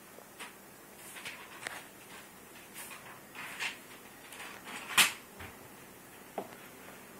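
Paper rustling as it is handled, in short scrapes every second or so, with one sharper knock about five seconds in.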